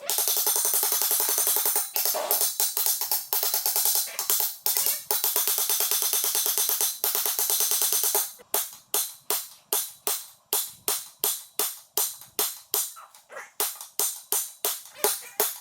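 Background music of crisp, shaken percussion: a dense, continuous high shimmer, then from about eight seconds in, evenly spaced hits at about three a second.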